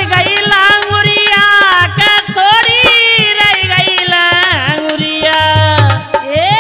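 Instrumental passage of a Languriya folk song: a lead melody with long sliding, bending notes over a steady hand-drum beat.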